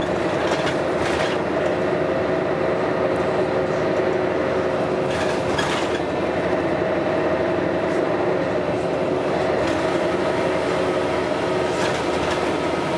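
Scania L113CRL bus under way: a steady engine drone with a whine in it, against a constant rattle of the vehicle. A few brief, sharper noises come through about half a second in, around five seconds in and near the end.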